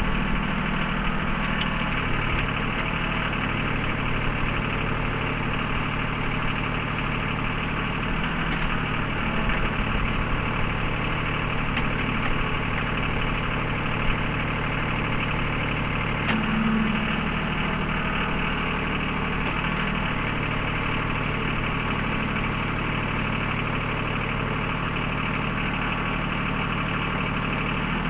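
Mahindra 3616 compact tractor's diesel engine running steadily at an even speed, with a few faint clicks and knocks.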